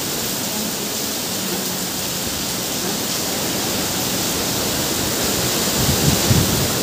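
Heavy monsoon rain pouring down in strong wind, a steady, even hiss.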